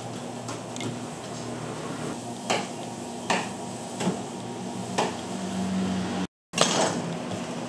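Kitchen utensil knocks over a steady low hum: four evenly spaced knocks about a second apart, then a louder clatter after a brief break near the end.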